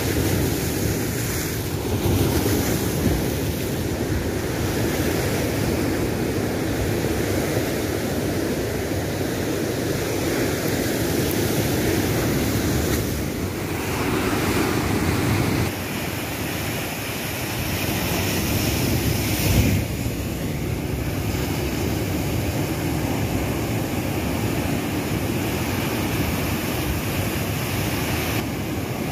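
Rough sea surf crashing and churning against rocks, with wind buffeting the microphone. The sound shifts suddenly in level several times.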